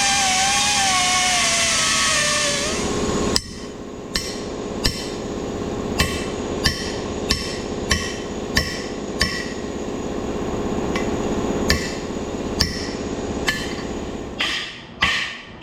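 Hammer blows on steel, about fifteen strikes at roughly one every two-thirds of a second with a short pause midway and quicker blows near the end: hammering at a seized bearing race in a baler roller to drive it out. Before them, a motor whines with a wavering pitch and winds down about three seconds in.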